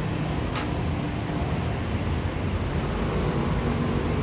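Steady low rumble of background noise, with a single sharp click about half a second in.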